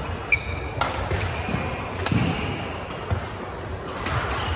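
Badminton rally: about three sharp racket strikes on the shuttlecock, with shoes squeaking and feet thudding on the court mat.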